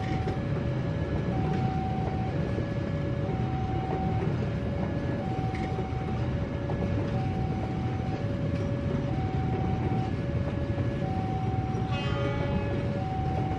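Argo Wilis passenger train passing at speed, a steady low rumble of wheels on rails. Over it sounds a two-tone electronic warning alarm, switching between a higher and a lower tone about once a second.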